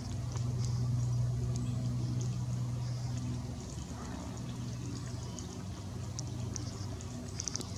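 A steady low hum with faint scattered high ticks and crackle over it; no bird calls.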